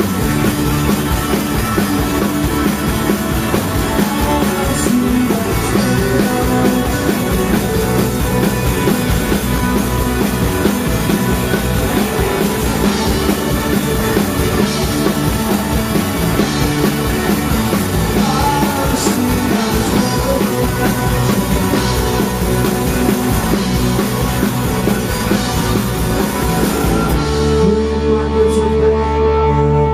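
Indie rock band playing live at full volume: electric guitars and drum kit, with some singing. About 27 seconds in the full band drops out, leaving a sustained held chord ringing.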